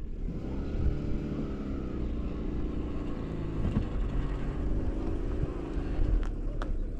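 A motor vehicle's engine running, its pitch rising and falling gently, over a low wind rumble on the microphone. Two sharp clicks come near the end.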